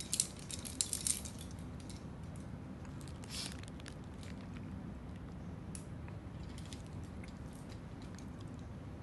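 Light metallic clicks and clinks of climbing hardware: a quick cluster in the first second or so, then scattered ticks, over a steady low rumble.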